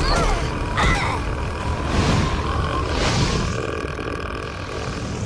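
A female cartoon character letting out one long, loud burp.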